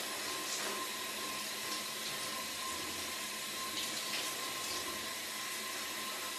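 Shower water running: a steady spray hiss with a thin, steady whine underneath.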